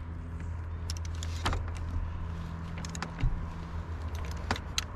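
Scattered short metallic clinks of lug nuts and wheel tools, about one a second, over a steady low hum.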